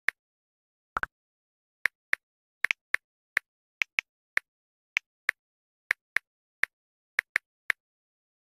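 Smartphone on-screen keyboard clicking with each key tap as a message is typed: about twenty short, sharp clicks at an uneven pace. A slightly lower double click comes about a second in.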